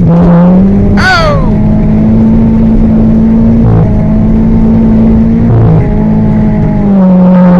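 Car engine running loud at high, steady revs, dipping briefly about four seconds in and again near six seconds. About a second in there is a short high squeal that falls in pitch.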